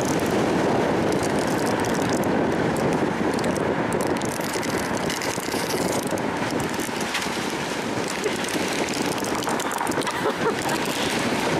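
Steady road noise from a slowly moving Audi, its tyres rolling on asphalt close by. Over it, a smartphone dragged on a string scrapes and skitters across the road surface with faint irregular ticks.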